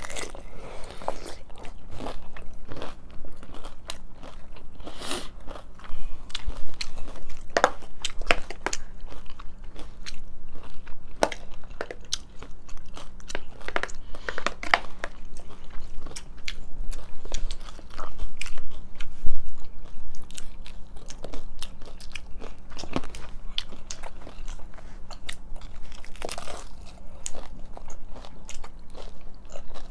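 Two people biting and chewing crunchy hard-shell tacos close to the microphone: irregular sharp crunches with chewing between them.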